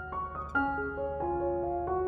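Background music: a piano playing a slow melody of single struck notes, each left to ring and fade.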